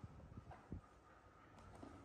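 Near silence with a few faint, short low knocks as two baby macaques clamber over a plastic chair.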